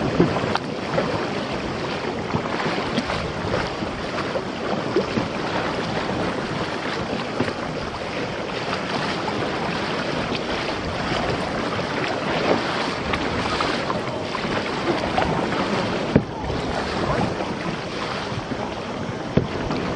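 Sea water splashing and lapping around a kayak as it is paddled, with small scattered splashes from the paddle and steady wind noise on the microphone.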